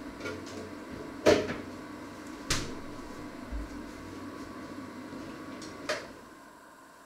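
Sharp kitchen knocks and clunks from someone working out of view: a loud one about a second in, another a second later, and a third near the end. Under them runs a steady low hum that fades away after the last knock.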